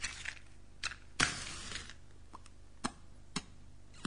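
A match struck about a second in, flaring with a short fading hiss, amid a few small handling clicks: someone lighting up to smoke.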